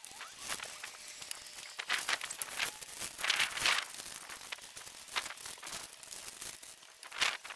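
Dry postcrete mix being poured from its bag around the base blocks on gravel: scattered rustling and crunching, loudest about three seconds in and again near the end.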